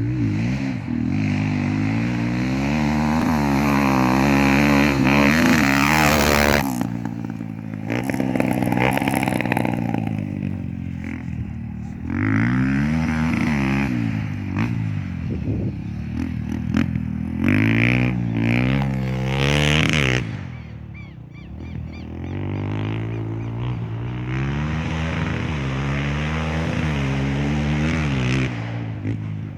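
Honda XR 250 Tornado's single-cylinder four-stroke engine under way, its pitch climbing through each gear and dropping at the shifts several times. Around two-thirds through it eases off, then runs more evenly.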